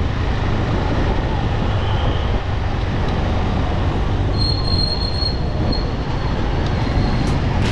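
Motorcycle being ridden: a steady rush of wind, engine and road noise. A thin high squeal lasts about two seconds a little past halfway.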